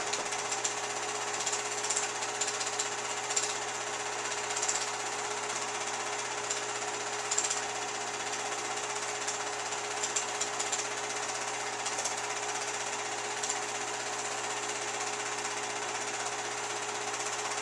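Home-movie film projector running: a steady mechanical whir and clatter with a faint hum and scattered small ticks.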